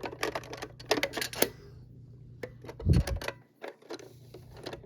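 Small hard items clicking and clattering as they are taken out of a vending machine by hand: a quick run of clicks at first, a low thump about three seconds in, then a few more clicks.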